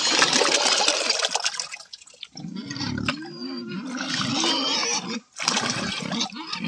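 A bucket of rice slurry splashing and pouring into a basin of water for about two seconds, with more pouring later. Pigs grunt throughout the second half.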